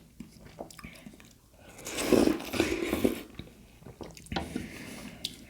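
Close-miked biting and chewing of juicy cold watermelon: small mouth clicks, then a louder wet crunching bite about two seconds in, followed by quieter chewing.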